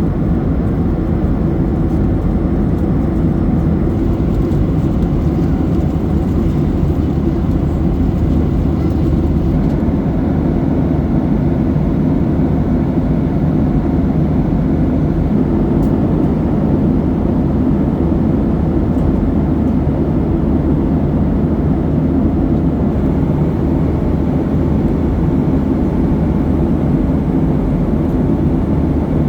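Steady cabin noise of a Boeing 737-800 in cruise flight: the constant low rush of airflow and engine hum from its CFM56 turbofans, unchanging throughout.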